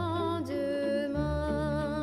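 Recorded choral music: high voices singing long held notes over a low accompaniment.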